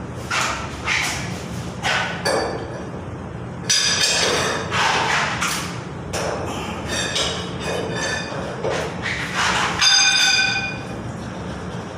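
Metal tools and parts clanking and clinking at the base of an electric water heater during an element change, some strikes ringing out, the loudest about four seconds and ten seconds in. A steady low hum runs underneath.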